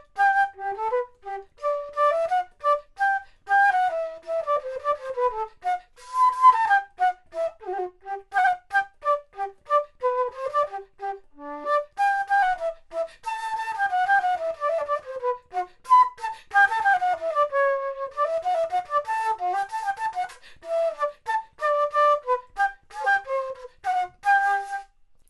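3D-printed plastic baroque flute (traverso, Bizey model) playing a solo prelude: one melodic line of separately tongued notes with quick runs up and down the instrument.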